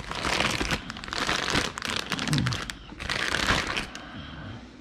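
Clear plastic packaging bag crinkling and rustling as it is handled and pulled off a paint sprayer gun, in irregular bursts that die down near the end.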